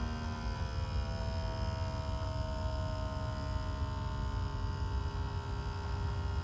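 Small electric fuel pump running steadily on a 2S battery, draining fuel out of the tank. It makes a steady electric hum and whine, deliberately slow so the suction won't collapse the tank.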